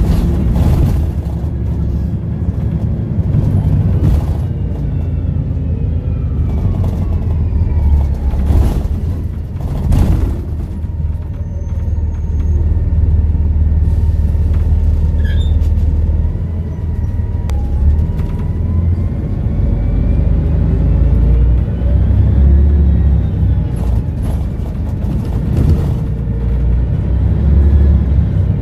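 Volvo B7RLE bus engine and Voith automatic gearbox running under way, with a low rumble and a turbo whistle whose pitch rises and falls as the bus accelerates and eases off. Several sharp thumps come through, around the start and again a few seconds in.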